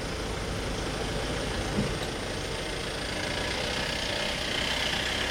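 Safari vehicle's engine running as it drives, with a short knock just before two seconds in and a rushing hiss that grows louder over the second half.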